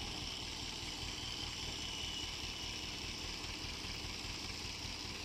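Escorts Hydra mobile crane's diesel engine running steadily, a constant low rumble with a steady hiss above it.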